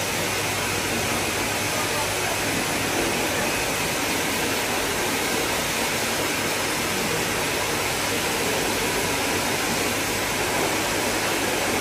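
Hose-fed pet grooming dryer blowing steadily, a loud even rush of air, as a wet puppy's coat is dried after its bath.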